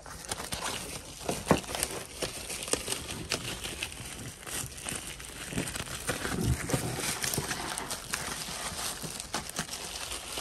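Clear plastic wrapping crinkling and rustling as a folding plastic basket is unwrapped, with scattered clicks and taps from its stiff plastic panels.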